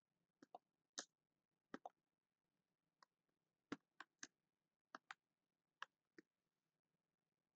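Computer keyboard keystrokes: about a dozen faint, separate key clicks at an irregular pace as a short line of code is typed.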